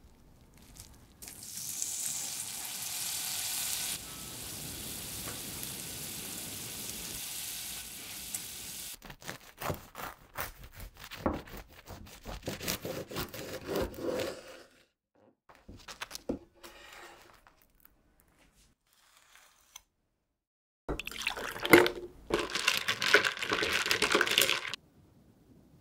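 A steady hiss runs for about eight seconds. Then a knife saws through a toasted sandwich with a run of crisp crunching cuts. Near the end, ice cubes clink and rattle against a glass of iced coffee as it is stirred.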